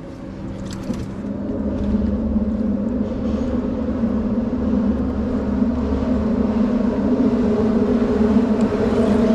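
Steady engine drone with a low hum, slowly growing louder.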